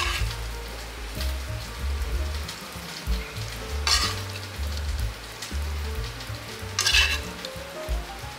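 Metal spoon scraping a hot wok as stir-fried meat, shrimp and vegetables in thick starchy sauce slide out onto crispy fried noodles, with sizzling. There are three louder scrapes: near the start, about four seconds in and about seven seconds in. Quiet background music plays underneath.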